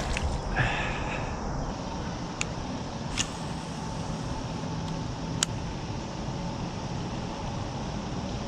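Steady low rumble of distant road traffic, with a few brief sharp clicks at intervals.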